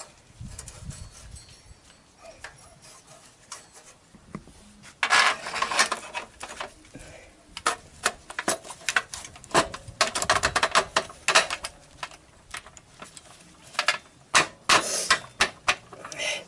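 Irregular metallic clinks, taps and rattles as a motorcycle's new chrome exhaust is handled and fitted by hand. They come in clusters about five seconds in, again from about eight to eleven seconds, and near the end.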